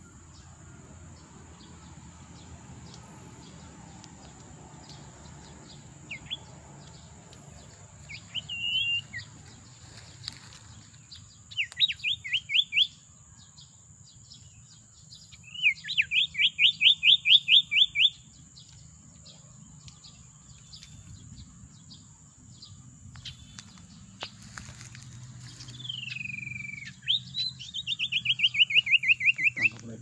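Common iora (sirtu) calls: several separate bursts of fast, evenly repeated sharp notes, the longest lasting about two and a half seconds, and a falling whistled slur near the end, over a steady high-pitched whine.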